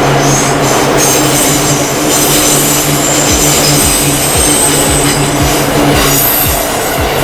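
Seibu Haijima Line electric train passing over a level crossing, its wheels clacking in a quick, even rhythm over the rail joints from about three seconds in, with a thin high wheel squeal in the middle, while the crossing's warning bell keeps ringing.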